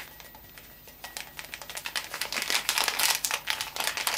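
Drink-mix sachet crinkling as it is shaken and powdered hot chocolate mix pours out of it into a glass mug. It is a dense run of small crackles starting about a second in.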